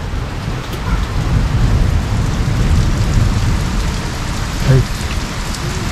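Heavy rain pouring down steadily on a garden, with a deep rumble underneath.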